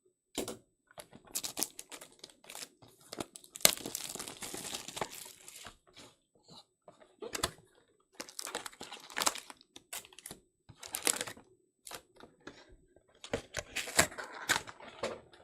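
Plastic wrapping torn and crumpled as a sealed trading-card box is opened, with irregular crinkling and rustling and a couple of longer tearing stretches.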